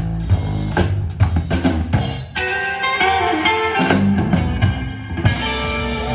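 Live rockabilly trio playing without vocals: upright double bass, drum kit and hollow-body electric guitar. About two seconds in the drums drop back and the guitar rings out held notes, then the drums come back in near four seconds.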